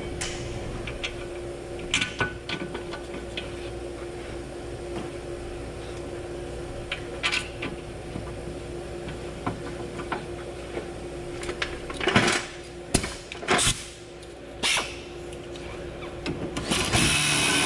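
Scattered metal clicks and knocks as a rear brake caliper bracket and pads are handled and fitted onto the wheel knuckle, over a steady background hum. About a second before the end a handheld power tool starts running, driving in a bracket bolt.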